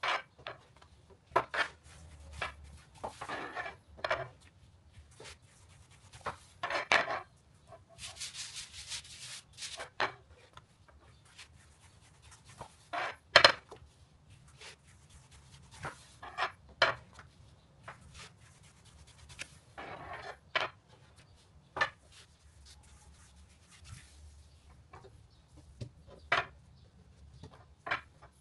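A long metal rolling pin rolling and sliding over a thin sheet of dough on a floured tabletop: irregular soft rubbing and scraping strokes, with a single sharp knock about halfway through that is the loudest sound.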